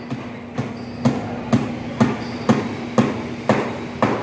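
Hammer blows on wooden formwork, steady strikes about two a second, as carpenters nail together forms for a concrete tie beam.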